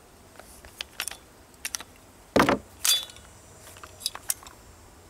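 Metallic clicks and clacks of an AR-15 with a CMMG .22LR conversion kit as its action is worked by hand to clear a stoppage after a dud round. A single sharp clack comes about halfway through, among lighter clicks.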